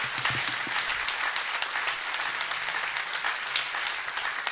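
Concert audience applauding: many hands clapping at once in a steady, dense patter.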